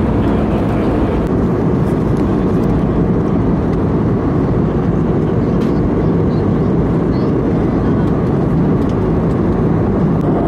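Steady rumble of cabin noise inside an Airbus A320neo in flight: engine and airflow noise, even in level with no change in pitch, heaviest in the low range.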